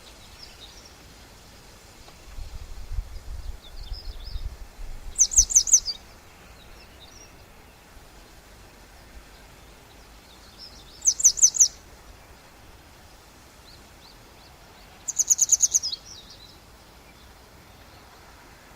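A songbird singing three short phrases, each a quick run of high, clear notes, spaced several seconds apart. A low rumble comes in a few seconds before the first phrase.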